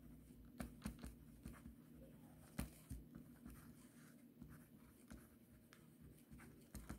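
Faint scratching of a pen writing by hand on a textbook page, with small irregular ticks as the letters are formed.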